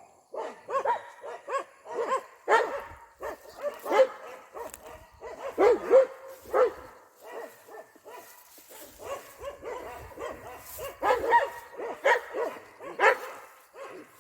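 Dog barking repeatedly in quick, short barks, with the loudest barks about six seconds in and again near the end.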